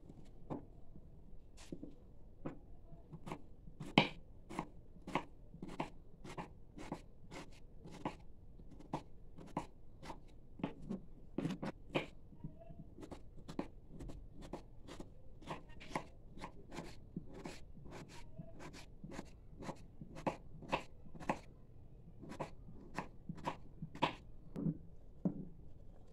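Kitchen knife dicing potato on a wooden cutting board: a steady run of sharp taps of the blade on the board, about two to three a second, with one louder knock about four seconds in.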